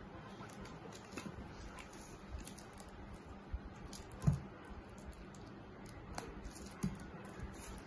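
Faint rustling and crinkling as a plastic-wrapped bundle of paperback workbooks is handled and its wrap pulled at, with a soft thump about four seconds in and a smaller one near the end.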